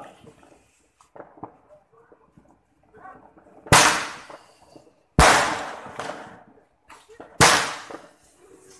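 Handheld Roman candle firework firing three shots about a second and a half to two seconds apart, each a sudden bang that trails off over about a second.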